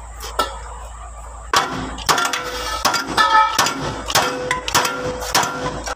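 A hand tool strikes and scrapes against the metal brake housing of a Landini DT85 tractor, starting about a second and a half in. It makes a string of sharp metallic clinks, about two a second, each with a brief ring.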